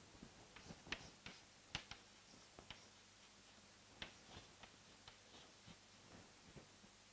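Chalk writing on a blackboard: a string of faint, irregular taps and short scratches as letters are written, with the sharpest taps about a second in, just before two seconds, and at four seconds.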